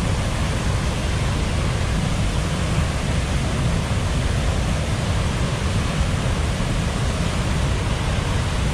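Steady roar of Athirappilly Falls, a large river waterfall, heard from close by as an even, unbroken rush of falling water.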